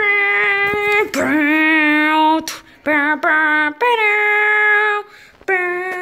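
A young person's voice singing a wordless tune as a stand-in for background music: long held notes with small pitch bends, broken by short pauses about two and a half seconds and five seconds in.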